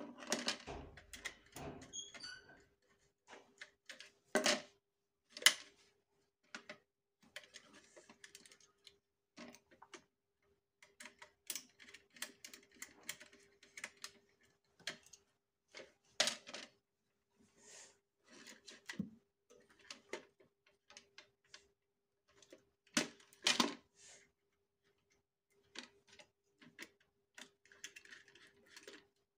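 Irregular clicks, taps and small knocks from hands working a plastic modular switch-and-socket board: wires are pushed into its terminals and the terminal screws are turned with a small screwdriver. A few louder knocks stand out.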